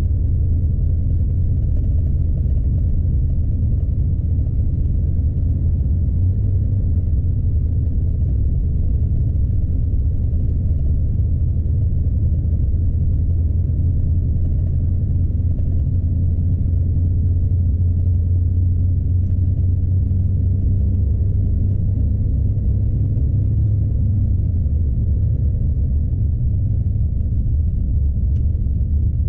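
Steady low rumble of a Scania truck heard inside its cab while driving on a snowy road: the diesel engine running under way together with tyre and road noise.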